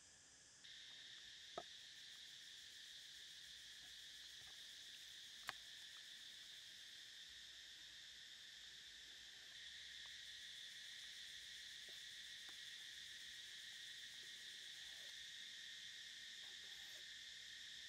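Faint, steady, high-pitched chorus of insects, with two sharp taps of a steel knife on a wooden chopping block, about a second and a half in and again about five seconds in, and a few softer knife ticks while raw pork is sliced.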